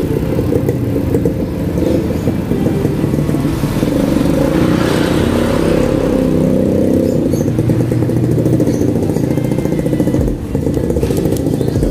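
Motorcycle engine running on the move, a steady low drone. A rushing hiss swells and fades about five seconds in, and the drone dips briefly near the end.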